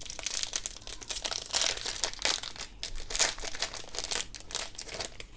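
Plastic trading-card pack wrapper crinkling as it is handled and torn open, a dense run of crackles that stops near the end.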